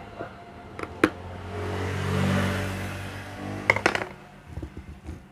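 Sharp clicks of a screwdriver and screws as the screws are taken out of a small Bluetooth speaker's casing. A rumble swells and fades over about two seconds in the background, over a steady low hum.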